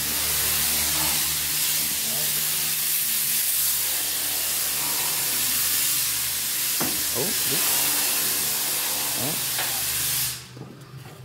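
Vehicle lift lowering a car body onto its engine cradle: a steady hiss with a low hum underneath and a few short squeaks, cutting off suddenly about ten seconds in as the lift stops.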